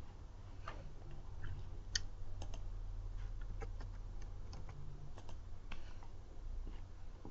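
Computer keyboard being typed on: a dozen or so irregular key clicks, the loudest about two seconds in, over a steady low hum.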